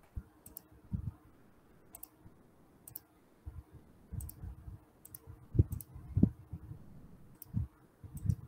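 Scattered computer clicks and low thumps from someone working at a desk, heard through a video call's microphone, loudest a little past the middle.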